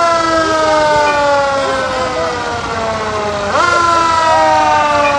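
Ladder fire truck's siren sounding in repeated wind-ups: the pitch is already sliding slowly down at the start, jumps up quickly about three and a half seconds in, then begins sliding down again.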